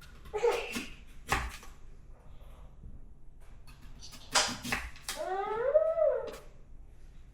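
A knife knocks sharply on a cutting board twice as a green apple is cut, then a quick cluster of knocks. A drawn-out whining cry follows, rising and then falling in pitch for about a second.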